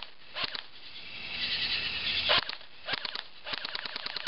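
Airsoft gun shooting: a few separate sharp shots, the loudest about two and a half seconds in, then a fast, even string of shots starting about three and a half seconds in.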